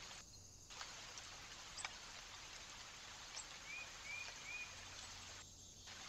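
Faint outdoor hiss with a few light ticks and, a little past the middle, three short chirps about half a second apart from a small bird at a feeder. The hiss drops out briefly twice.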